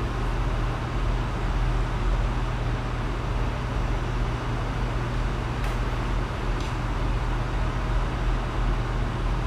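A steady low hum and rumble of background noise runs without a break. Two faint high clicks come a little past the middle.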